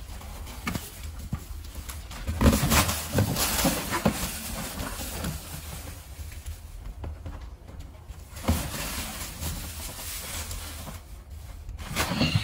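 Shredded paper Easter grass in a cardboard box, rustling and crackling in irregular bursts as a toddler grabs handfuls and throws them. The loudest bursts come about two to four seconds in.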